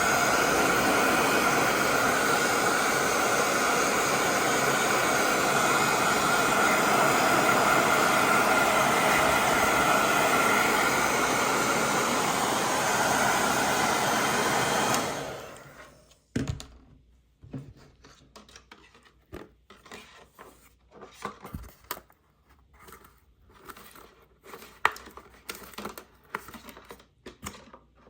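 Hair dryer blowing steadily, drying a washed Scruff-a-Luvs plush toy, then switched off about halfway through. Scattered light clicks and rustling from handling follow.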